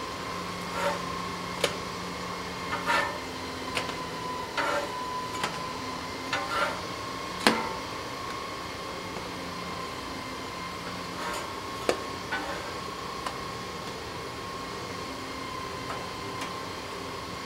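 Blackstone propane griddle turned down low while pancakes cook: a steady hum with scattered light clicks and taps, the sharpest about seven and a half seconds in.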